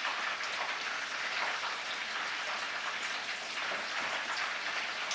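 Battered chicken pieces deep-frying in hot oil: a steady sizzle and crackle.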